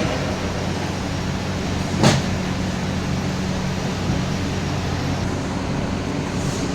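A steady machine hum with low, even tones, like a fan or air-conditioning unit running, and one sharp click about two seconds in.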